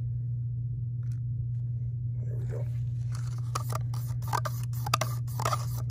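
Wooden popsicle stick stirring and scraping around the inside of a thin plastic cup of acrylic wash, a quick run of clicks and scrapes starting about two seconds in, over a steady low hum.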